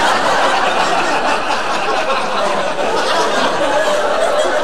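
Studio audience laughing, a long unbroken wave of laughter after a punchline.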